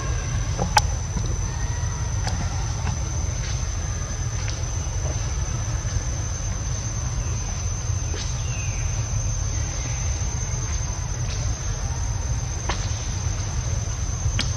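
A steady high-pitched insect drone over a constant low rumble, with a few faint clicks and one sharp click about a second in.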